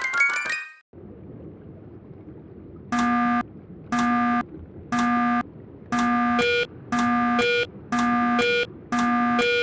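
Japanese railroad crossing warning bell, electronic, ringing about once a second over a low steady rumble. After a few rings a second, lower tone sounds between the rings. A brief glockenspiel-like music run ends the first second.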